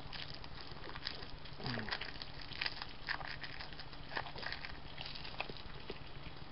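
Faint, irregular wet clicks and smacks from a mouth full of hard cinnamon fireball candies being sucked, with a brief low hum through closed lips about two seconds in.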